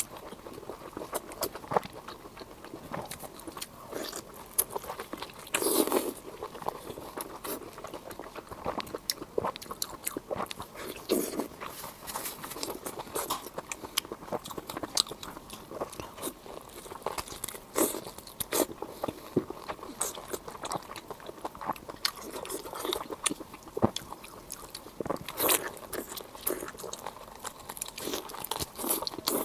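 Close-miked eating: a person biting and chewing crunchy food, with a steady run of irregular crisp crunches and mouth clicks.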